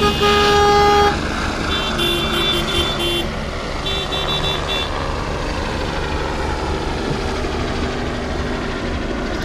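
Car horns honking in slow traffic: one loud steady horn blast about a second long at the start, then groups of short repeated toots around two and four seconds in, over the low steady rumble of idling cars.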